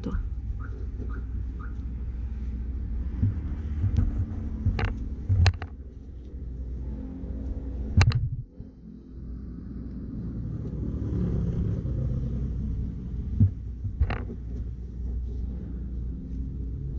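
A steady low rumble with a handful of sharp clicks or knocks scattered through it, the clearest about eight seconds in.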